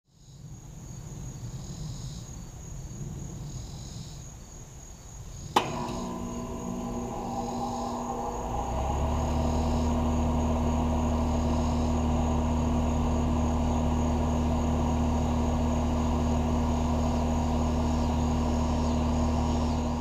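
Insects chirping, then a sharp click about five seconds in as a 2018 Carrier Comfort Series 3.5-ton heat pump's outdoor unit starts in cooling mode. Its scroll compressor begins a steady hum, and the unit grows louder a few seconds later and settles into an even run, with the insects still chirping.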